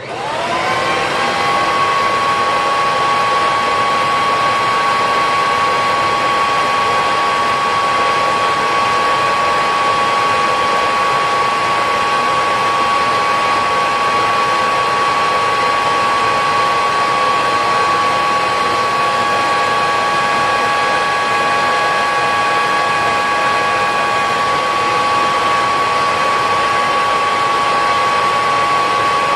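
Kirby Heritage II Legend upright vacuum switched on, its motor spinning up within about a second to a steady high whine. It runs on with the factory cloth bag fitted, pulling air through an airflow test box.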